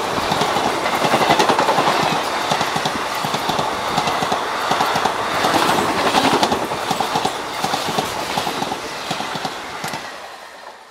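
Passenger express coaches, blue Indian Railways sleeper coaches, running past at speed: a dense clatter of wheels over rail joints. It fades away as the last coach, a luggage and brake van, goes by near the end.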